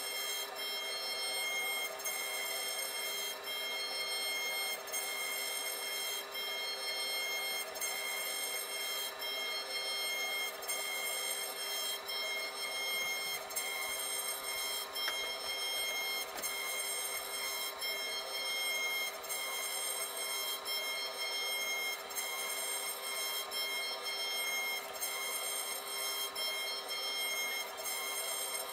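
CNC router spindle running with a steady high whine while a thin tapered carving bit cuts into a softwood board, with faint regular cutting pulses as the bit moves along its path.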